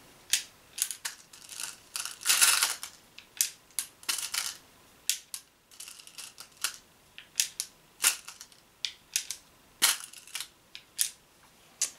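Irregular sharp clicks and clacks of hard balls being pushed one by one into an Umarex HDP50 pistol's magazine, with a longer rustling scrape about two seconds in.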